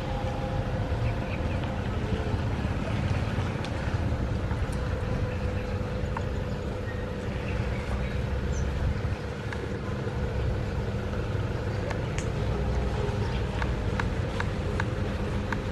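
A steady low rumble with a constant hum, as of a motor running, and a few faint clicks in the last few seconds.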